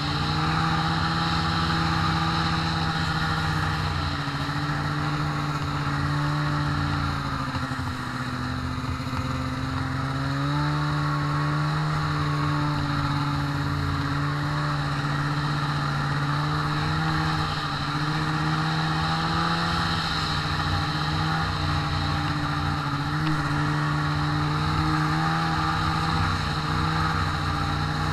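Snowmobile engine running steadily under way on a trail. Its pitch eases down a few seconds in, climbs back up around ten seconds in, then holds with small rises and falls.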